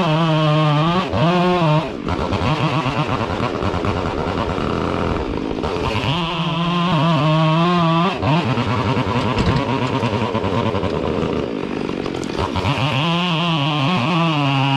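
Two-stroke chainsaw held at full throttle, its engine note sagging and wavering while it cuts into wood, then rising back to a steady high scream when it runs free, twice over: about 6 seconds in and again near the end.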